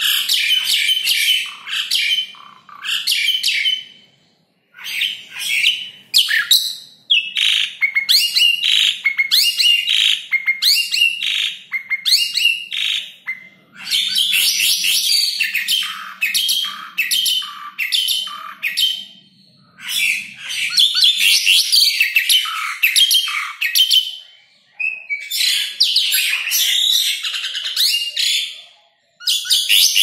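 Asian pied starling singing a fast, varied, chattering song in long runs broken by a few short pauses.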